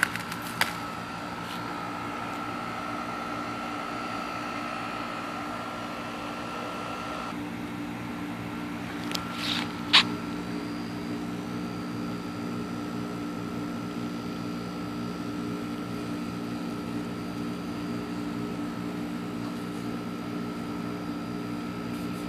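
A steady mechanical hum, like a fan or motor running, with a few sharp clicks near the start and a louder click about ten seconds in.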